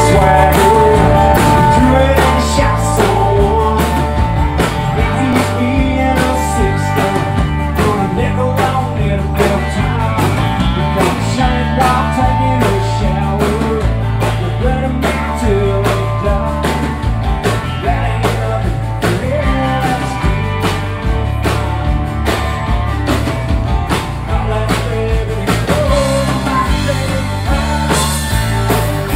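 Live band playing a rock song through a PA: drum kit with a steady beat, bass, electric and acoustic guitars, and a male lead vocal.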